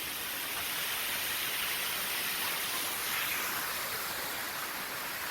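Steady hiss of running, splashing water.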